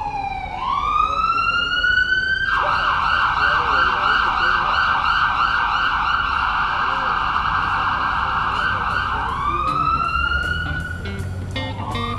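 Emergency vehicle siren: a slow rising wail that switches to a fast yelp for several seconds, then back to a slow rising wail. Music with clicking percussion comes in near the end.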